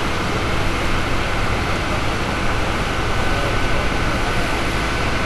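Steady rushing noise with a low hum underneath, from a fireboat's water cannon spraying and its engines running. A faint thin whine joins about two seconds in.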